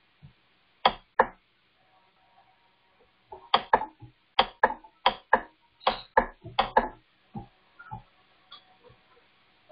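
Sharp clicking taps from operating a computer by hand: two about a second in, then a quick run of about ten between three and a half and seven seconds in, with a few fainter taps after.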